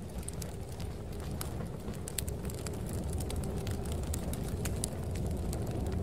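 Crackling fire, scattered sharp pops and snaps, over a steady low rumble of snowstorm wind.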